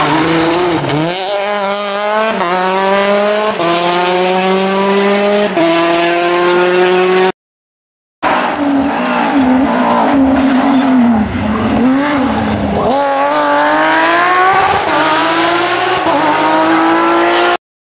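Rally car engines at full throttle: a Citroën DS3 rally car accelerates up through the gears, its pitch climbing and dropping back at each of several upshifts. After a second's break, a second rally car slows with the engine note falling and wavering, then accelerates hard from about thirteen seconds in, pitch rising steadily.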